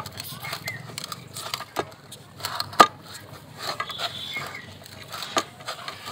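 Hands kneading soft maida dough in a large steel bowl: a soft squishing and pressing with irregular sharp clinks, a few louder ones about a second apart near the middle and one near the end.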